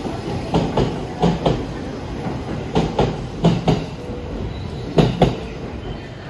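JR E231 series 0 electric commuter train departing, its wheels clacking over a rail joint in quick pairs as each car rolls past over a steady rumble. The last pair of clacks comes near the end, as the final car goes by.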